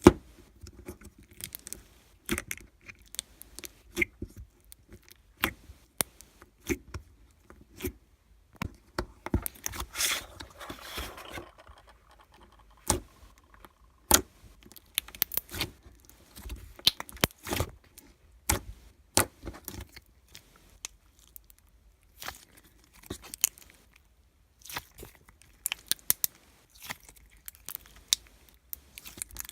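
Handling noises: scattered sharp clicks and knocks, with a longer scraping, rustling stretch about ten seconds in.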